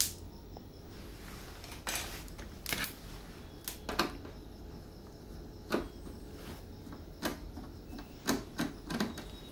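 Irregular light clicks and knocks of a screwdriver working screws out of a flat-screen TV's plastic back cover, with the plastic being handled.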